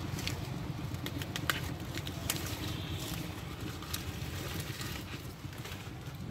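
Leafy plant stalks rustling and snapping as they are pulled up by hand, with a few sharp cracks in the first four seconds, over a steady low rumble of wind on the microphone.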